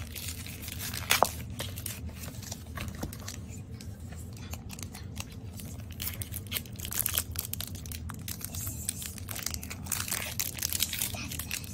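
Pokémon card hanger pack being torn open by hand: its cardboard blister card rips with a sharp snap about a second in, then the foil booster wrapper crinkles and tears irregularly.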